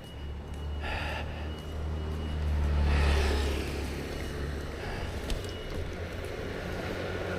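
A motor vehicle passing, its low rumble building to its loudest about three seconds in and then fading.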